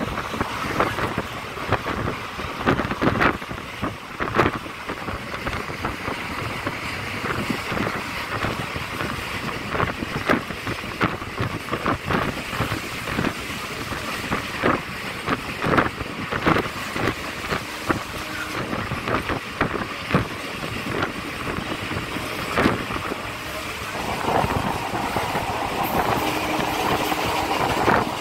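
Moving train heard from on board: a steady rumble and rush of air with many irregular clanks and knocks from the wheels and coaches, growing a little louder near the end.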